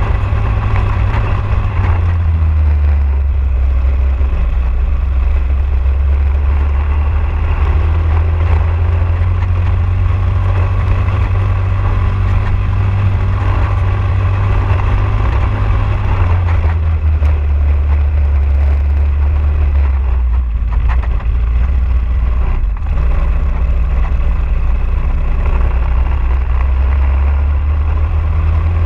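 Briggs & Stratton LO206 single-cylinder four-stroke kart engine running at racing speed, heard from the kart itself. Its note falls and rises several times as the kart slows and accelerates.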